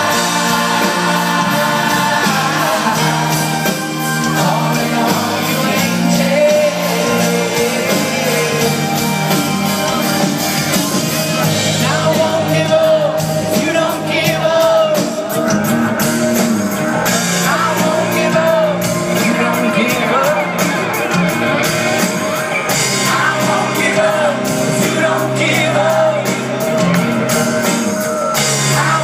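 Live rock band playing loud through a concert PA, with drums, electric guitars and a lead singer, heard from within the audience.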